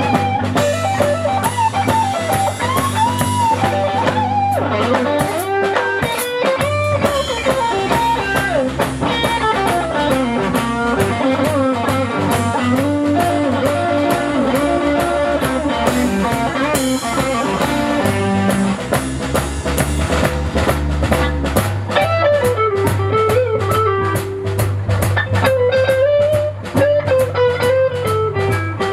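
A rock band playing: a gliding electric guitar lead over a steady bass line and drum kit.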